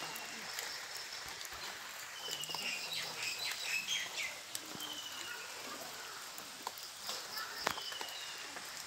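Birds chirping in short, high, repeated notes over a steady outdoor hiss, with one sharp click about three-quarters of the way through.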